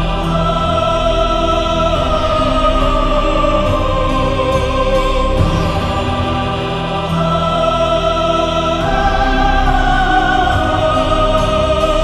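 Orchestral anime soundtrack music with a choir singing long held notes that change every few seconds over a low bass.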